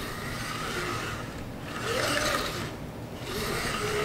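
Spline roller wheel rolling pet-resistant screen mesh down into a screen door frame's groove, a rasping rub of the wheel and mesh that grows louder about two seconds in and again near the end.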